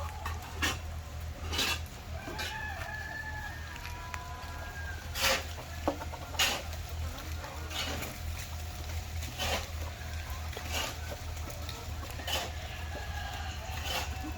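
A flock of chickens clucking, with a rooster crowing and sharp short calls scattered through, over a steady low hum.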